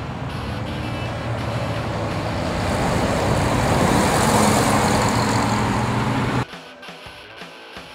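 Road traffic noise with the 1955 Chevrolet Bel Air's 350 V8, breathing through headers and a free-flow exhaust, driving past; it is loudest about four seconds in. After about six and a half seconds the road sound cuts off suddenly and quiet guitar music takes over.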